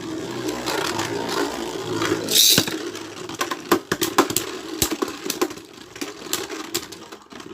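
Beyblade Burst spinning tops whirring in a plastic stadium, with a brief rushing burst about two seconds in and then many sharp clacks as the tops collide.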